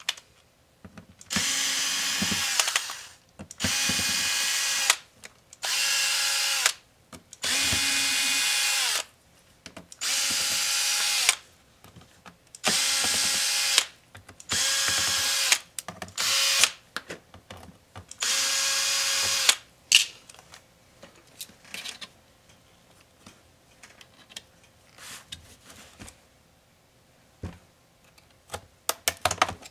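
Electric screwdriver whirring in about nine short runs of a second or so each, backing out the screws of a laptop's bottom panel. Near the end come faint clicks as the base cover is pried loose.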